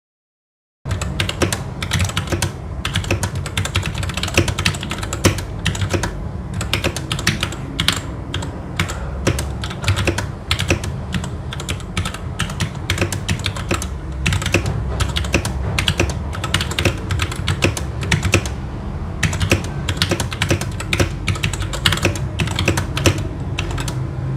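Fast continuous typing on a SteelSeries Apex 7 TKL mechanical keyboard with SteelSeries Red linear switches, a dense run of key clicks and clacks over a low steady hum, starting about a second in.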